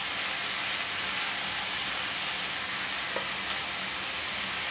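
Vegetables sizzling steadily in oil in a wok as they are stir-fried, with a light tap or two of the spatula against the pan about three seconds in.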